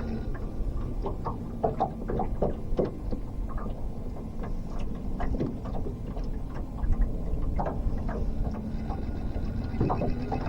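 Boat's motor humming steadily, with scattered knocks and clatter from handling gear on the boat.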